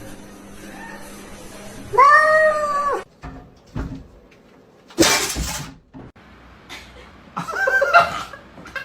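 A domestic cat meowing: one loud, drawn-out meow about two seconds in that rises and then falls in pitch, a short sharp noisy burst about five seconds in, and another rougher cry near the end.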